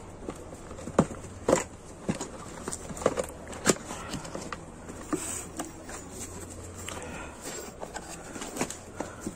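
Cardboard box and bubble wrap being handled as a pump is unpacked: irregular crinkles, taps and knocks, a few of them sharper than the rest.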